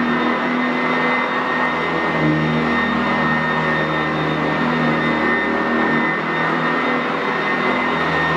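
Upright bagged vacuum cleaner running as it is pushed back and forth over carpet: a steady motor whine over a dense rushing hiss, with the lower hum shifting slightly between strokes.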